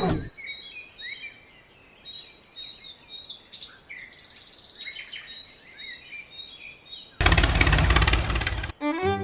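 Small birds chirping, many short high calls over a quiet background. About seven seconds in, a loud burst of rushing noise lasts about a second and a half, and music starts just before the end.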